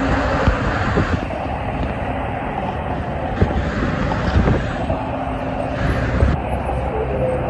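Dense highway traffic: a steady wash of tyre and engine noise from cars and tractor-trailers, with wind buffeting the microphone in low thumps. The sound shifts abruptly about a second in and again just past six seconds.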